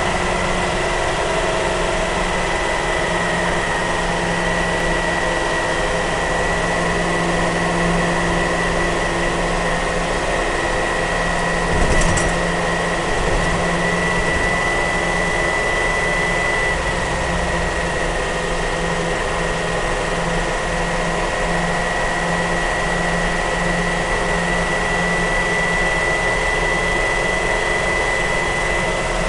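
Tatra 805 military truck's air-cooled V8 petrol engine running steadily while cruising at about 50 km/h, heard from inside the cab, with a steady high whine over the engine note. A single brief knock about twelve seconds in.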